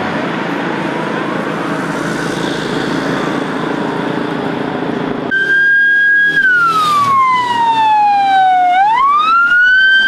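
Emergency vehicle sirens wailing faintly over a haze of street noise. About five seconds in, a much louder ambulance siren takes over: it holds a high note, slides slowly down, then sweeps quickly back up and holds.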